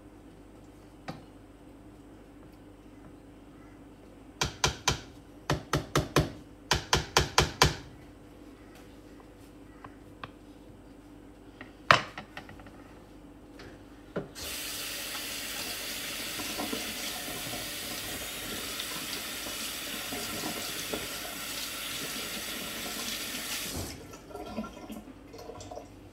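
A kitchen tap runs for about nine seconds and is turned off, an even rush of water. Before it, a rapid run of about a dozen light knocks and then one sharp, louder knock, kitchen utensils handled at the stove.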